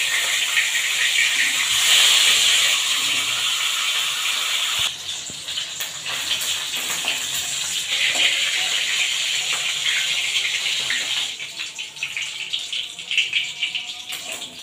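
Pieces of hilsa fish sizzling in hot oil in a steel kadai, a steady frying hiss with scattered pops and spits. The sizzle is loudest over the first few seconds, drops about five seconds in, and thins to sparser crackles near the end.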